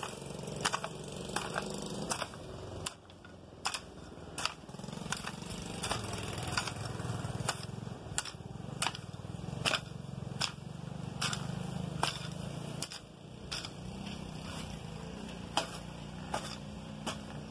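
Hand hoe chopping into weeds and soil, a steady run of short sharp strikes roughly one to two a second over a steady low rumble.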